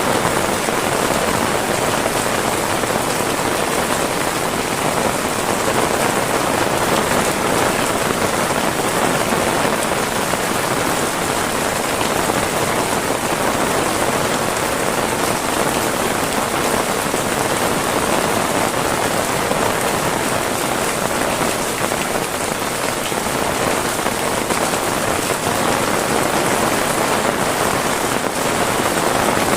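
Heavy rain falling steadily and pattering on surfaces: a dense, even hiss that holds at the same level throughout.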